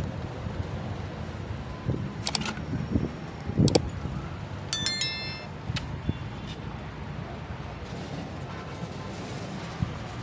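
A steady low rumble with a few sharp knocks, and about five seconds in, a single metallic clink that rings briefly with high overtones, as of a piece of metal being struck at the construction site.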